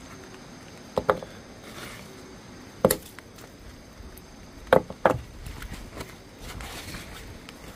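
Concrete blocks knocking as they are set by hand onto a cardboard-covered clay oven dome: a quick double knock about a second in, a single sharper one near three seconds, and another pair near five seconds.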